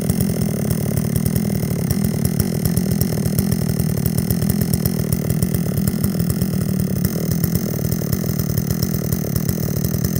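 Stihl MS 382 two-stroke chainsaw engine idling steadily with its clutch cover off. It still runs despite a crankshaft twisted at the clutch end, showing the engine did not seize.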